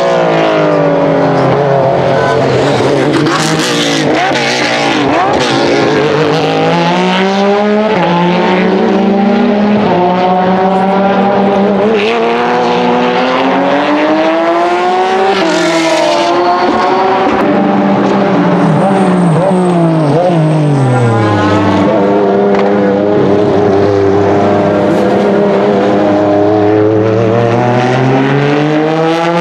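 Naturally aspirated 3.6-litre flat-six engines of Porsche 996 GT3 RS and RSR race cars passing one after another. Engine notes drop in steps as the cars brake and downshift, then rise in long climbs through the gears as they accelerate away, with more than one car heard at once.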